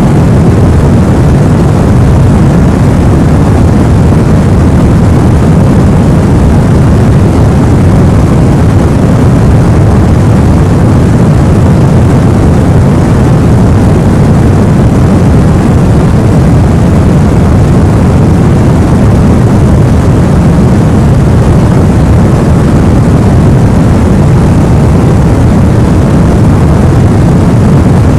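Continuous sleep-aid white noise, loud and unchanging, a deep even hiss with most of its weight low down, closer to brown noise than to bright white noise.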